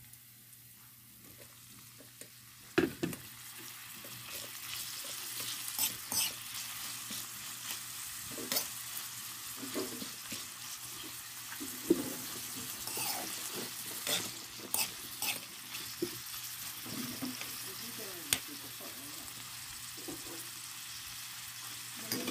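Chopped meat sizzling as it fries in a metal wok over onion, garlic and chili, with the clicks and scrapes of a spatula stirring against the pan. The sizzling is faint at first, then grows after a sharp knock about three seconds in.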